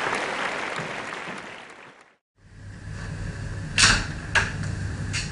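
Applause dying away over about two seconds, then, after a short silent break, a steady low room hum with three sharp knocks, the first the loudest.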